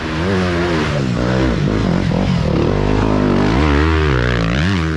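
Dirt bike engine revving hard, its pitch rising and falling again and again as the throttle is worked, climbing strongly near the end.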